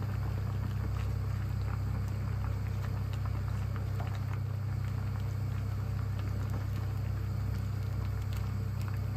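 A pot of vegetables simmering in broth under a steady low hum, with faint scattered taps and scrapes as a slotted spoon pushes greens into the enamelled cast-iron pot.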